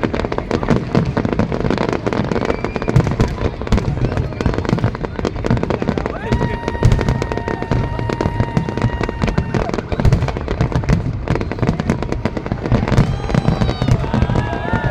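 New Year fireworks display: a dense, continuous barrage of bangs and crackling. A steady high tone is held for about three seconds midway.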